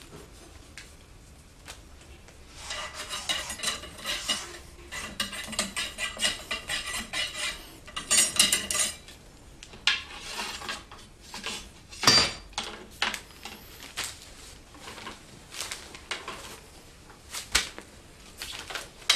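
Ramrod worked in the iron barrel of a Japanese matchlock gun (hinawajū): a dense run of scraping, clinking strokes, then separate sharper metallic taps, the loudest about twelve seconds in.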